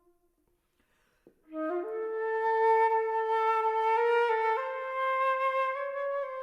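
Solo flute: a brief pause, then a quick rising figure about a second and a half in, leading into a long held note that steps up slightly twice.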